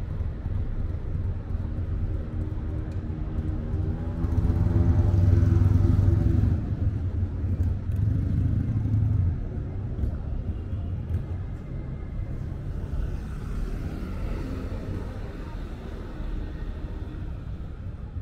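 City street traffic: a steady low rumble of engines, with one vehicle passing close and loudest about four to six seconds in.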